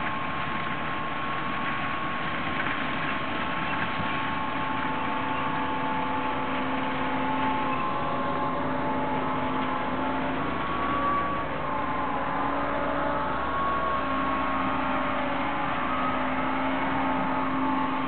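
Diesel engines of a Holmer T3 self-propelled sugar beet harvester and a John Deere tractor carting beet, running steadily under load with a droning tone that shifts slightly in pitch. A deeper rumble joins about halfway through.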